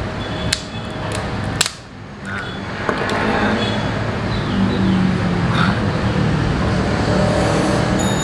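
Two sharp cracks about a second apart as a metal crab cracker breaks a cooked crab's claw shell, followed by the shell being pulled apart by hand. A steady low background rumble runs underneath.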